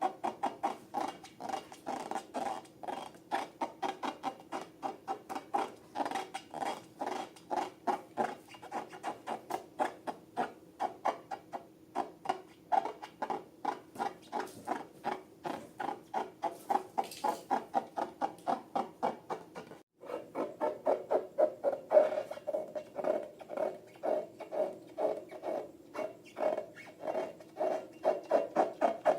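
Rapid squeaks and squishes from hands working toy slime and balloons, about three or four a second, with a brief break about twenty seconds in.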